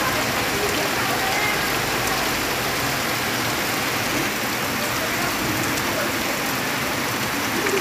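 Heavy rain falling on trees, palms and leafy vegetation: a dense, steady hiss of rain that holds even throughout.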